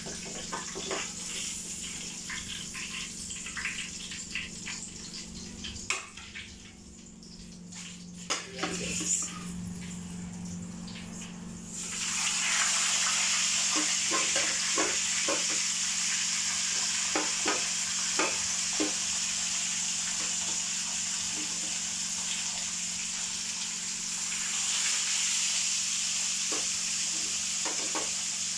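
Galunggong (round scad) frying in a pan of hot oil: a sizzle that turns much louder about twelve seconds in and stays steady, with spitting pops and crackles of oil. A couple of knocks sound a few seconds before it swells.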